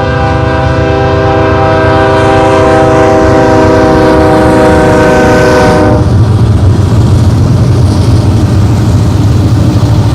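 Nathan AirChime K5HL five-chime locomotive air horn sounding one long, steady chord that cuts off abruptly about six seconds in, after which the train's low rumble carries on.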